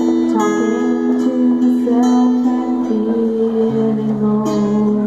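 A girl singing with a strummed acoustic guitar accompaniment.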